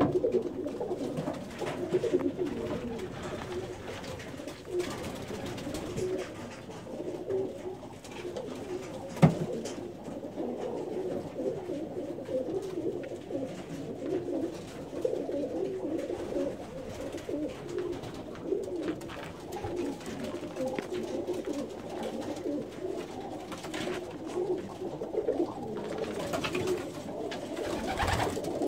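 Several domestic pigeons cooing continuously, their overlapping low coos running on without a break. A single sharp knock about a third of the way through stands out above the cooing.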